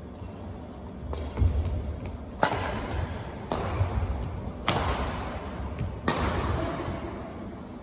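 Badminton singles rally: rackets hitting the shuttlecock five times, one sharp smack about every second and a quarter, each ringing out in the echoing hall, with thudding footwork on the court between shots.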